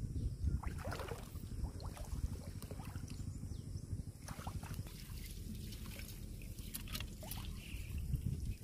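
Shallow muddy water splashing and dripping as a mesh fish trap full of small fish is handled, with scattered short splashes over a steady low rumble.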